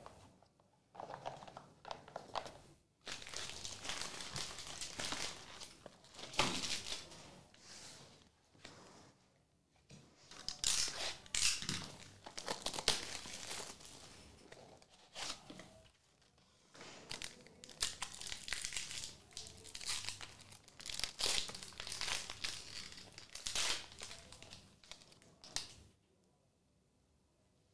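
Trading card pack wrappers crinkling and being torn open, in irregular rustling bursts that stop a couple of seconds before the end.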